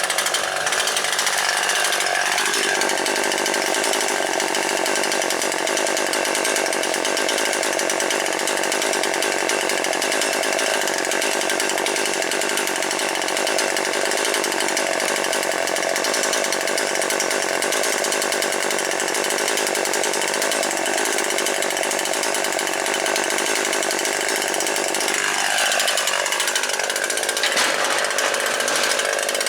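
Husqvarna 540XP Mark III two-stroke chainsaw running hard while cutting storm-felled wood, a steady high engine note. The pitch shifts about two and a half seconds in and rises and falls again near the end as the throttle and load change.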